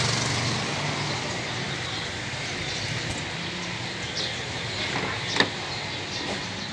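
Car door latch clicking open with one sharp click about five seconds in, over steady street noise and a faint low hum.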